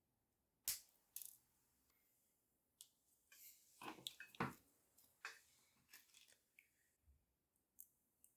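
Small clicks, taps and light scrapes from jewelry-making materials and tools being handled. A sharp click comes about a second in, a busier run of clicks and scrapes comes around the middle, and a few lighter ticks follow.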